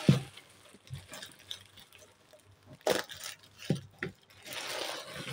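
Thin black plastic bag crinkling and rustling as it is cut with scissors and pulled back from a bag of jewellery, with a sharp knock at the start and a few clicks. A longer stretch of rustling comes near the end.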